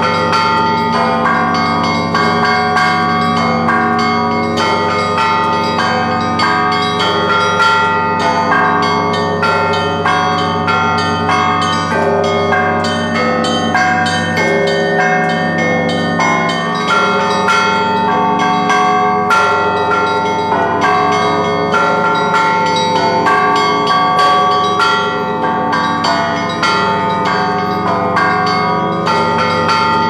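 Russian Orthodox church bells rung by one bell-ringer pulling clapper ropes: rapid strikes of small bells over the long-ringing tones of larger bells, in one continuous peal.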